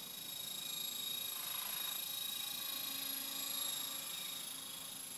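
E-flite Blade 400 electric RC helicopter in flight: a steady high whine from its electric motor and gears over the hum of the rotors, growing a little louder in the middle.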